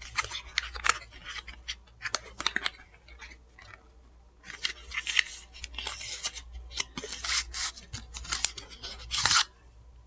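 Small cardboard product box being handled and opened, and a round plastic compact slid out of it: a series of short scrapes and rustles, the loudest just before the end.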